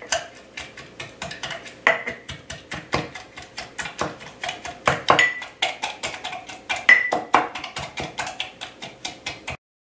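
Wooden muddler pounding lemon slices, mint and blackberries in a glass mason jar: a quick run of knocks, several a second, a few with a short glassy ring. The sound cuts out abruptly near the end.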